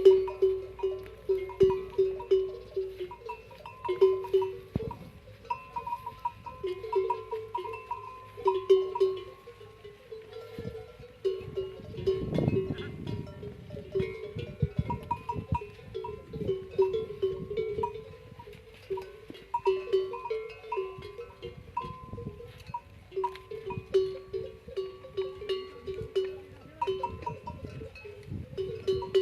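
Bells hung on camels clanking as the animals move, a lower and a higher bell tone struck over and over in irregular clusters.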